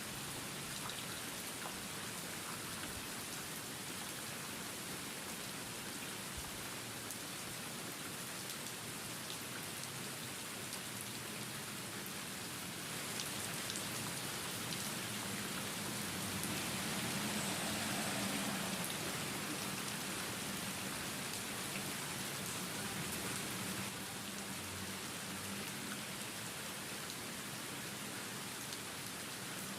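Steady rain: a hiss of many drops pattering on a surface, swelling louder for several seconds in the middle before settling back.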